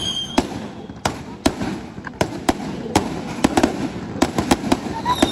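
Fireworks display: a quick, irregular run of sharp bangs and cracks from bursting aerial shells, with a high whistle dying away at the very start.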